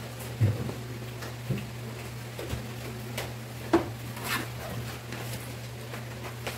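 Scattered light knocks and clinks of tableware and a cardboard pizza box being handled during a meal, the sharpest knocks about half a second in and a little after the middle, over a steady low hum.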